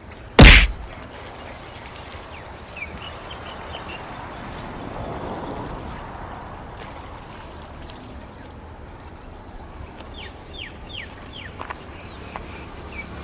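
A sudden loud thump about half a second in, then steady outdoor background with small birds chirping in quick series and several falling whistled notes near the end.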